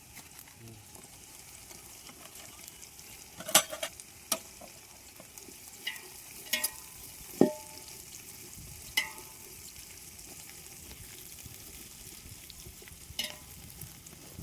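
Food sizzling steadily in hot mustard oil in a pan. A metal spoon clinks against the pan about seven times while stirring, a few of the strikes ringing briefly.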